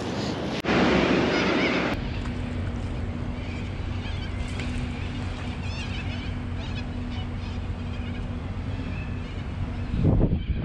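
Wind rumbling on the microphone beside open water, with a few short bird calls about four to six seconds in. The noise changes abruptly under a second in and again at about two seconds, as between shots.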